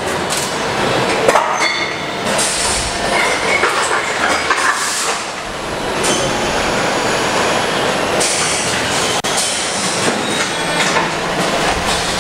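Factory-floor machinery running steadily: injection moulding machines and a parts conveyor belt, with a continuous clatter of small clicks and knocks.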